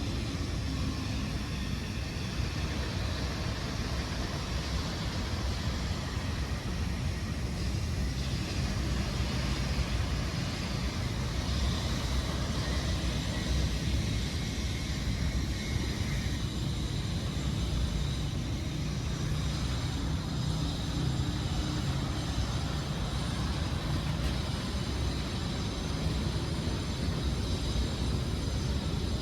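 Steady low rumble of distant city traffic, with faint steady high-pitched tones above it.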